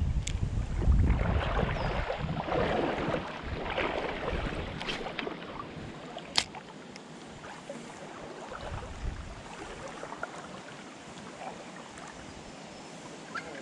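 Wind buffeting the microphone and water sloshing for the first few seconds, then the steady rush of river water, with a sharp click about six seconds in.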